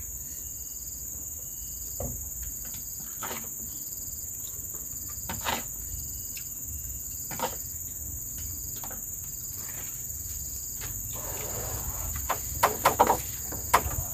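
A steady, high-pitched chorus of forest insects, with scattered light knocks and clatter that come thicker and louder near the end.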